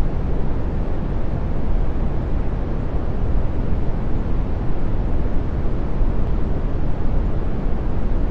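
Brown noise: a steady, deep and soft random noise with no pattern or change, strongest in the bass and fading away toward the treble.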